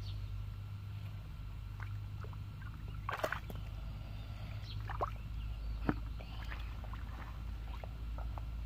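Hands groping and sloshing through a shallow, muddy puddle, with a few sharp splashes and clicks about three, five and six seconds in, over a steady low rumble.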